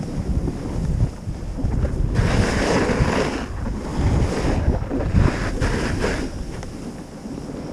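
Wind buffeting the microphone while skis hiss and scrape over packed snow at speed, the rushing rising and falling every second or two.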